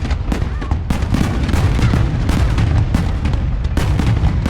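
Aerial fireworks going off in quick succession: many overlapping bangs over a continuous low booming.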